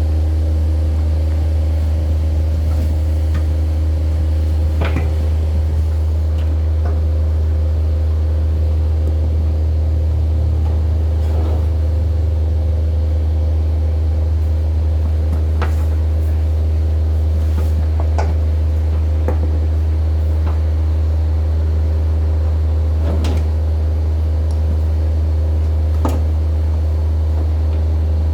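A steady, unchanging low mechanical hum, with scattered light knocks and clicks now and then.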